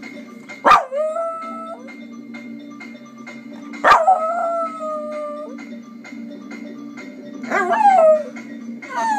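A dog howling: two long, steady howls, then shorter howls falling in pitch near the end. Music with a steady beat plays underneath.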